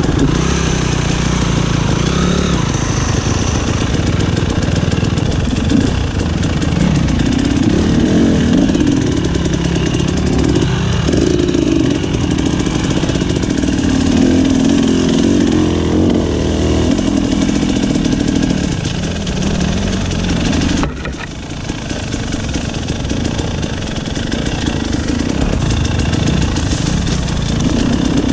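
Dirt bike engine running on a trail ride, its pitch rising and falling with the throttle. It drops off suddenly about three-quarters of the way through, then picks up again.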